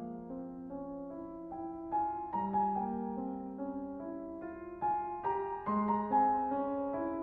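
Slow, calm instrumental piano music, one held note or chord giving way to the next.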